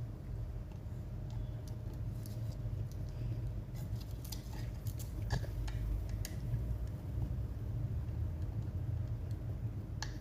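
Scattered light clicks and taps of hands working on an opened laptop, most of them in the middle and one near the end, over a steady low hum.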